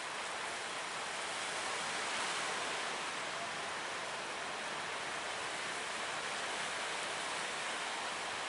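Steady rush of ocean surf breaking, swelling slightly about two seconds in.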